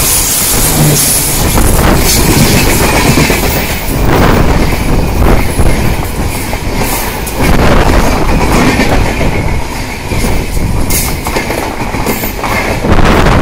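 Indian Railways LHB passenger coaches rolling past at speed close by. The wheels clatter on the rails, with the noise swelling each time a bogie goes by.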